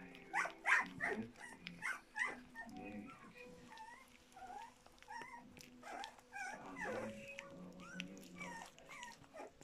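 A three-week-old puppy lapping oatmeal porridge from a saucer, with wet clicking laps mixed with many short, high squeaks and whimpers.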